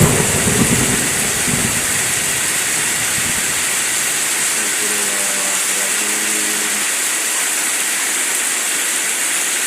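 Steady hiss of heavy rain and wind, with a low rumble of thunder dying away over the first two seconds.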